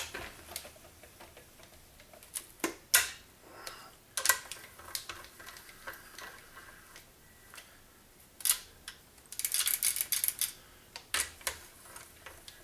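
Socket ratchet clicking as the bolts holding down a TH400 transmission's valve body are run in, with scattered metallic clicks and knocks of the socket and extension on the bolts. About two thirds of the way through comes a fast run of clicking lasting about a second.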